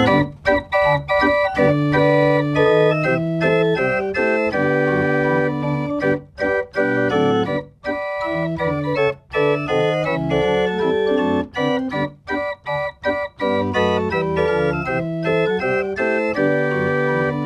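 Homemade chest organ (continuo organ) playing music in several parts: sustained notes and chords with brief breaks between phrases, and a run of short detached notes about two-thirds of the way through.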